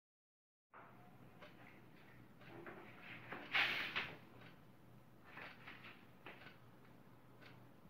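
Near silence at first, then a wooden door being handled at its latch: scattered clicks and knocks, with one brief loud rattle of the door and bolt about three and a half seconds in.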